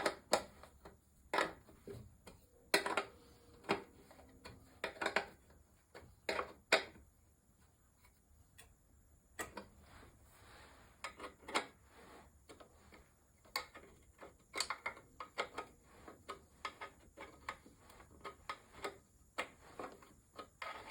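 Ratchet wrench clicking in short runs as it turns 10 mm bolts, with a few sharper metal clinks from tools and parts; a quiet pause of a couple of seconds near the middle.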